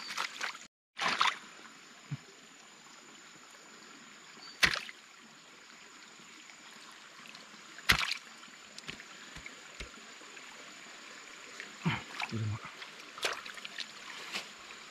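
Water trickling steadily, with a handful of sharp, short knocks spread through.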